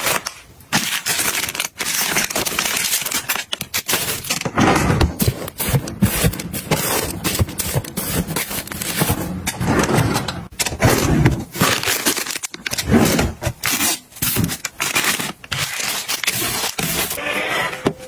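Plastic-wrapped packs of facial tissue crinkling and rustling as they are handled and pushed into a drawer, with soft knocks and scrapes against its sides.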